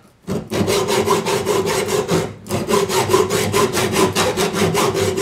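Hacksaw cutting through the steel can of a Crosland oil filter clamped in a vise, in fast, even back-and-forth strokes with a brief break about two and a half seconds in. The blade goes through easily, which the cutter puts down to a slightly cheaper, thinner tin.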